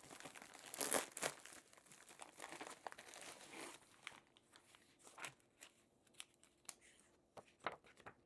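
Faint crinkling and rustling of a plastic poly mailer bag being pulled open and a foam-wrapped book slid out of it, loudest about a second in. After about four seconds only scattered light clicks of handling remain.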